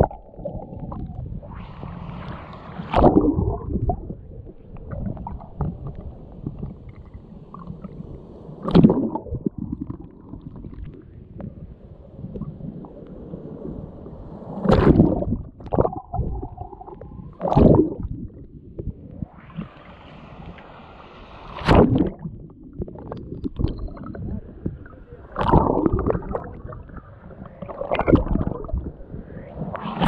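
Small sea waves washing over a submerged camera, heard muffled through the water: continuous sloshing and gurgling with a loud, dull surge every few seconds.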